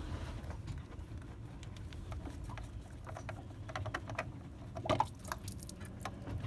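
Spin-on diesel fuel filter canister being unscrewed by hand from its housing: light, irregular clicks, taps and scrapes of the hand and the metal canister, a little louder about five seconds in.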